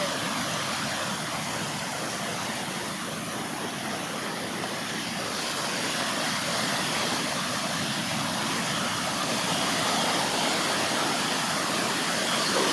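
Surf washing on the beach: a steady, even rushing hiss that swells a little in the second half.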